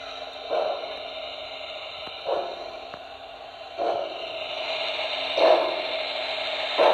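Onboard sound system of a Broadway Limited Paragon2 HO-scale Pennsylvania Railroad 2-10-0 Decapod playing slow steam exhaust chuffs, about one every one and a half seconds, over a steady hiss and hum. It grows louder near the end as the locomotive draws level.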